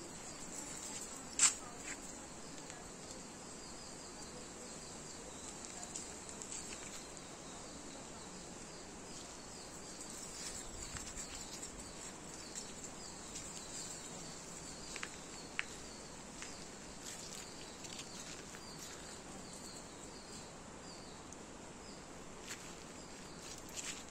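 Outdoor insect chirping, a steady high-pitched buzz with a faint repeating chirp, broken by a few sharp clicks. The loudest click comes about one and a half seconds in.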